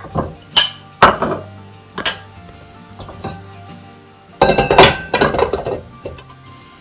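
Clinks and knocks of a bowl tapping against a stainless steel mixing bowl as brown sugar is tipped in, several sharp single strikes in the first two seconds. About four and a half seconds in, a longer metallic clatter as the steel bowl is set onto the base of a stand mixer.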